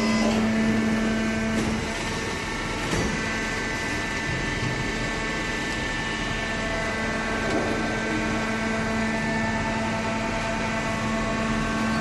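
Cardboard baler running: a steady mechanical hum with several sustained whining tones that shift every few seconds, and a brief knock about three seconds in.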